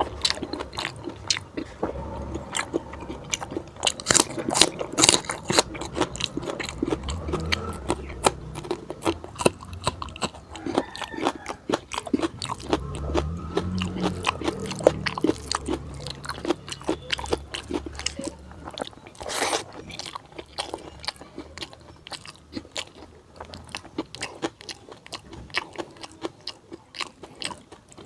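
Close-miked eating of fatty pork curry with bamboo shoot and rice: steady chewing with many quick wet mouth clicks and smacks, and one louder crunch or bite about 19 seconds in.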